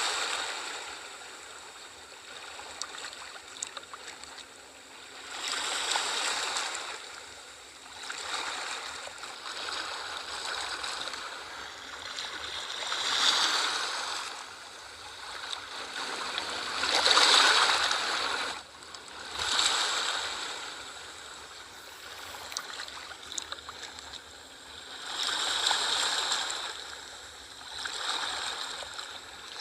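Sea waves washing onto a shore, each surge swelling and then fading over a few seconds, one after another.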